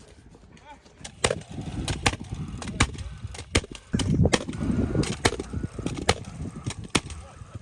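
A run of sharp knocks on wood during fencing work, roughly two a second and irregular, starting about a second in, over a low rumble.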